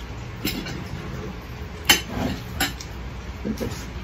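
Metal spoons clinking against glass plates as food is eaten and served: a few sharp separate clinks, the loudest about two seconds in.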